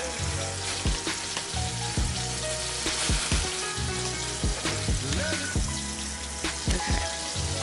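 Flour-dredged chicken breasts sizzling steadily as they fry in hot grease in a skillet. Background music with a steady beat plays underneath.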